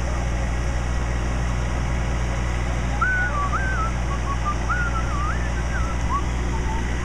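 Fire engine's engine running with a steady low rumble. From about three seconds in, short high chirping calls rise and fall over it.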